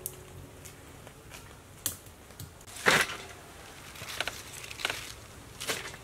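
Cut cabbage leaves rustling and crunching as they are dropped into a metal basin and handled by hand, in several short bursts, the loudest about three seconds in.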